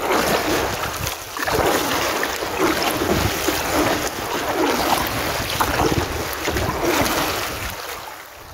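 Wind buffeting the microphone over water washing against a kayak's hull as it glides. The sound fades out near the end.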